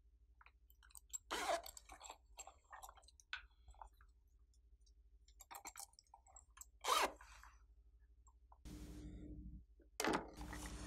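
Hands kneading and squishing slime, giving sticky little clicks and pops, with a few louder squelches.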